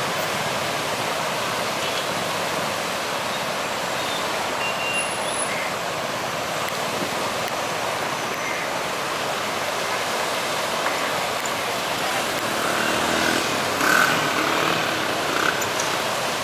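Steady rushing of a fast-flowing river in flood, an even noise with no letup. A few short, higher sounds rise briefly above it near the end.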